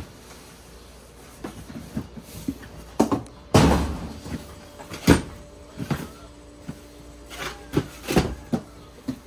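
Cardboard boxes of boxed subwoofers and audio gear being set down and shifted on a boat's deck: a run of irregular thumps and knocks with brief scraping, the heaviest about three and a half seconds in, around five seconds, and near eight seconds.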